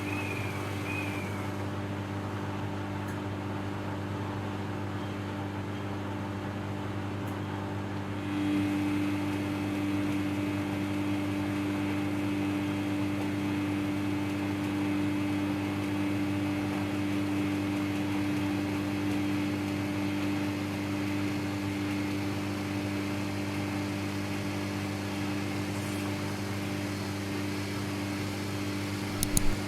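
Samsung EcoBubble front-load washing machine running through a cotton wash cycle: a steady motor hum that grows louder about eight seconds in, with a few sharp clicks near the end.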